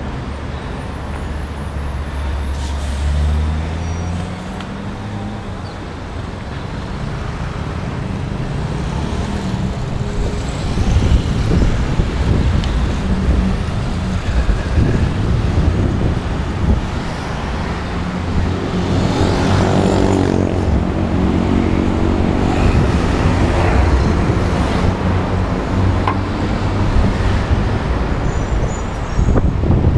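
City road traffic: motor vehicles running past in a continuous rumble, with one heavy vehicle's engine swelling louder and fading away about two-thirds of the way through.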